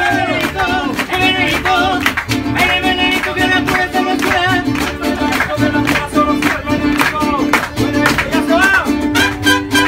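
Live mariachi band playing, its strummed guitars keeping a steady, bouncing rhythm under a melody line.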